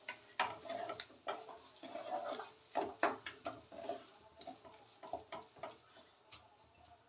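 A wooden spatula stirring and scraping a thick masala-and-tomato paste in a metal kadhai, with irregular knocks against the pan as the spices are fried until the oil separates.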